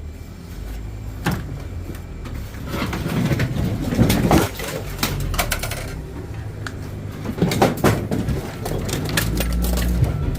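Scrap items being handled and sorted: irregular knocks, clanks and rattles, with a steady low rumble underneath.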